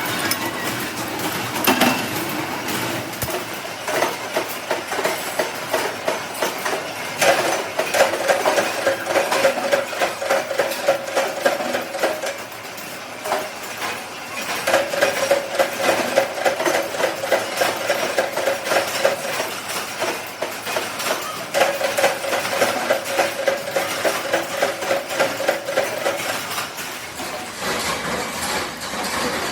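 Metal workshop noise: rapid clinking and clattering of metal parts throughout, with a machine running in three stretches of about five seconds each.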